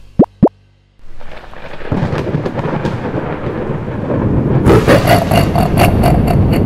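Two very short, loud rising blips near the start, then a thunderstorm sound effect. Rumbling thunder with rain swells in about a second later and keeps growing, crackling rapidly near the end.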